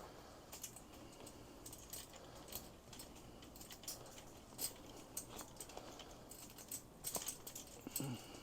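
Light metal hanging chain for LED shop lights clinking and jingling as it is handled: a faint scatter of small metallic clicks, with a louder cluster about seven seconds in.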